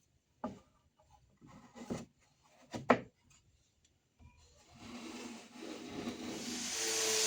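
Wooden pieces being handled: a few knocks and scrapes of wood on wood, one sharp knock about three seconds in. From about five seconds a steady noise rises and grows louder.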